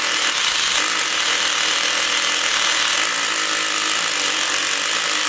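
Rotary hammer drilling into a concrete floor with a large masonry bit, running steadily at about half percussion to collar the start of the hole so the bit doesn't wander.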